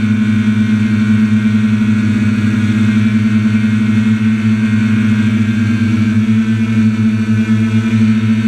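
Quadcopter motors and propellers heard close up from on board: a loud, steady buzzing hum as the craft descends toward the ground.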